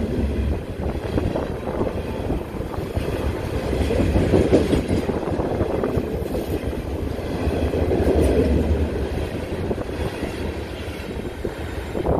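Freight train's hopper cars rolling past on steel wheels and rails, swelling louder twice.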